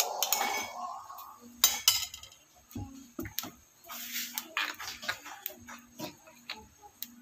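Kitchen dishes and utensils clinking and knocking: scattered sharp clicks with a clatter at the start and the loudest knock about a second and a half in.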